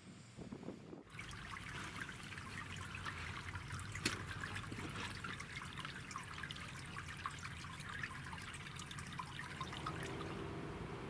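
Meltwater trickling and dripping from melting river ice, a dense patter of small ticks and crackles with one louder click about four seconds in. Near the end it gives way to a steady hiss.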